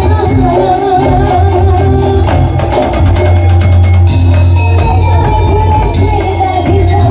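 Daul percussion ensemble playing loudly: heavy drums over a steady deep bass, a wavering melody line on top, and a cymbal crash about four seconds in and again near six seconds.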